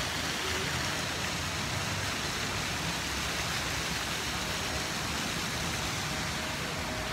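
Steady outdoor background noise, an even hiss with no distinct events and a faint steady tone underneath.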